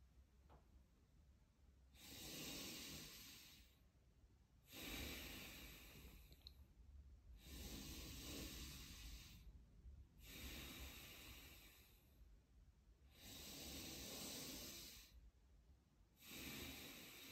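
Slow, deep breathing of a man doing chi gung: six long, audible breaths, one about every three seconds, each lasting a second or two, with quiet between them.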